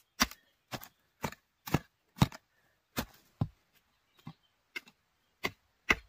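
A short-handled mattock chopping into forest soil over and over, about two strikes a second with a brief pause midway, digging out winter bamboo shoots.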